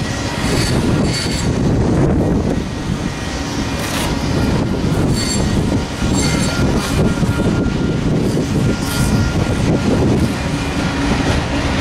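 Freight train's autorack cars rolling past, steel wheels running steadily on the rails, with brief high wheel squeals now and then and a longer squeal about halfway through.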